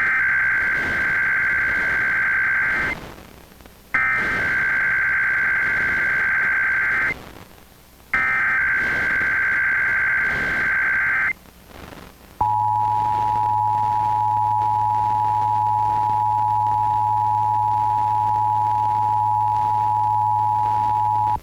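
Emergency Alert System SAME header: three bursts of digital data tones, each about three seconds long, with short gaps between them. These are followed by the steady EAS two-tone attention signal for about nine seconds, heard over FM radio. Together they mark the start of a required weekly test alert.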